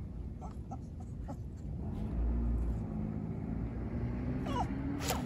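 A dog barking somewhere off: scattered faint short barks, the clearest near the end, over a steady low hum.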